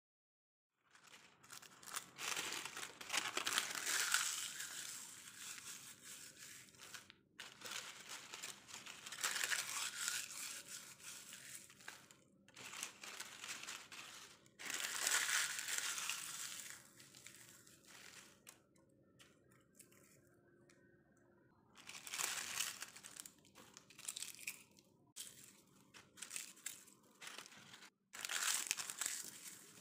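Dried mulberry leaves being crumbled and crushed by hand: a dry crinkling crackle that comes in spells of a few seconds, with short pauses between.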